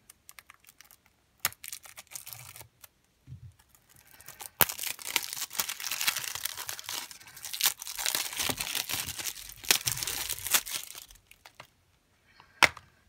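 Plastic shrink wrap being torn and peeled off a Blu-ray case: a crinkly tearing noise lasting several seconds, with a few sharp clicks and a loud click near the end.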